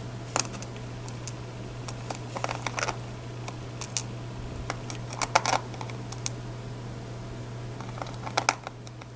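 Scattered light clicks and taps of small metal lock pins from a gutted Medeco KeyMark lock being handled on a work surface, some in quick little clusters, over a steady low hum.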